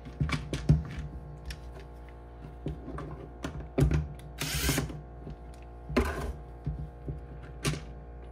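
Plastic housing of a corded hammer drill being handled and worked loose: a run of small clicks and knocks, with two short scraping rasps about four and a half and six seconds in.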